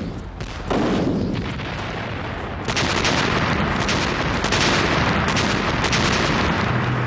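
Battle gunfire: a dense, continuous spatter of shots that grows louder about three seconds in.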